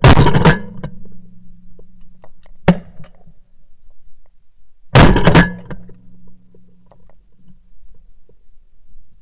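Two shotgun shots about five seconds apart, fired from the gun carrying the camera, each a loud crack followed by a low ringing hum that dies away over a couple of seconds. A single shorter crack sounds in between.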